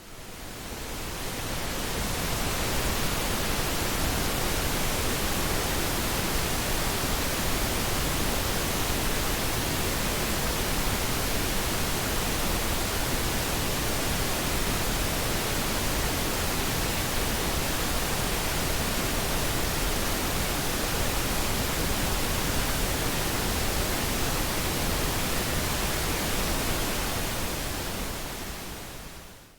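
Synthesized pink noise: a steady, even hiss with no tones or rhythm, fading in over the first couple of seconds and fading out near the end.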